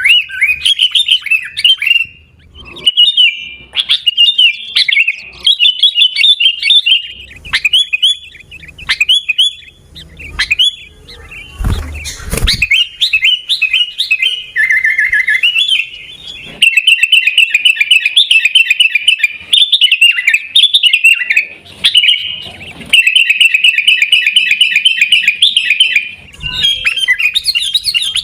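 Sooty-headed bulbul (kutilang) singing loudly: runs of rapid, repeated chirping phrases in bursts of a second or a few seconds with short breaks. A brief low thump comes about twelve seconds in.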